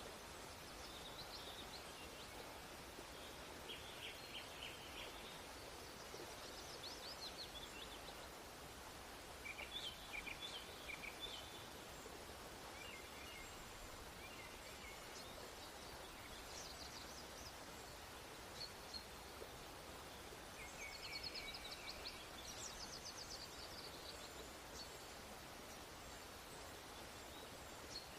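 Faint birds chirping in short twittering bursts every few seconds over a steady low hiss.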